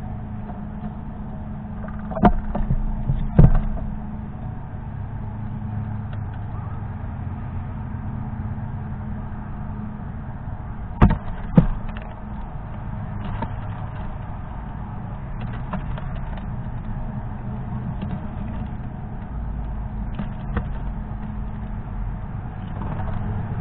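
A fox squirrel moving about on a feeder tray of sunflower seeds: a few sharp knocks, two pairs of them about two and eleven seconds in, then lighter ticks and taps, over a steady low rumble.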